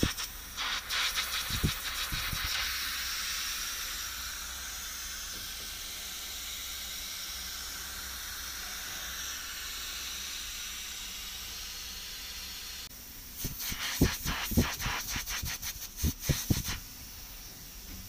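Steady hiss of nitrogen escaping under about 400 psi test pressure from a pinhole leak in a corroded copper refrigerant suction line. Rustling and knocks from hands on the pipe insulation come at the start and again for a few seconds near the end.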